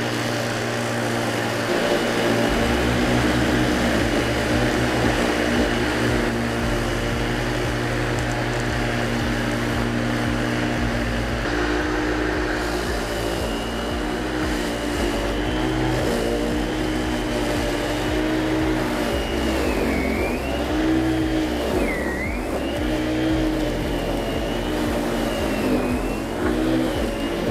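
WORX WG779E.2 40V cordless lawn mower running, its electric motor and blade giving a steady whine. In the second half the pitch dips briefly three times as the blade slows cutting through long, thick grass.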